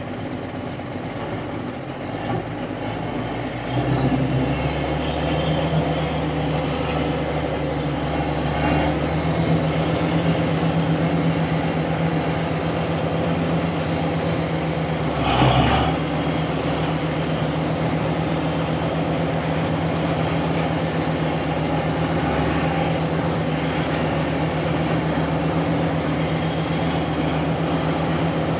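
John Deere 648D skidder's turbo diesel engine running steadily while it warms up, its hydraulics coming on. About four seconds in it picks up to a louder, steadier speed, and about halfway through there is a brief louder burst of noise.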